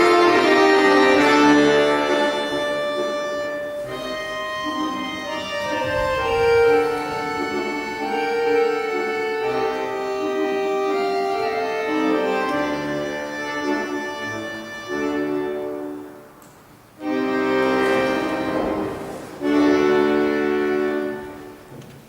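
Accordion playing dance accompaniment: a melody over sustained chords, closing with two loud held chords near the end.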